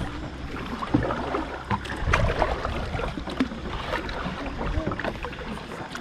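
Canoe paddling on a mangrove river: irregular paddle strokes dipping and splashing in the water, with scattered knocks.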